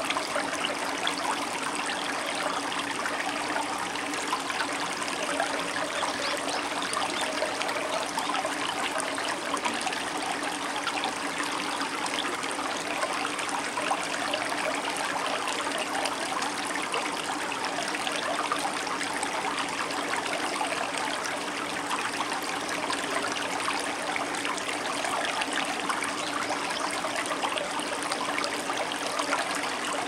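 Shallow stream running over cobbles and rocks, a steady babbling and trickling of water that does not change.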